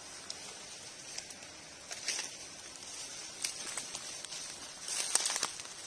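Footsteps crunching and rustling through dry leaf litter and twigs, with crisp crackles about two seconds in and a denser cluster near the end.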